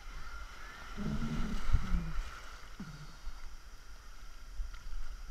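Sea waves sloshing around a camera held at the water's surface. A louder patch of splashing and gurgling comes between about one and two seconds in, with another short gurgle just after.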